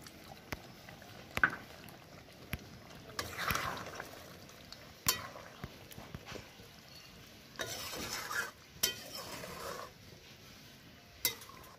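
A flat metal spatula stirring and scraping chicken pieces through thin gravy in a metal karahi, with several sharp clinks of the spatula against the pan between swishing strokes.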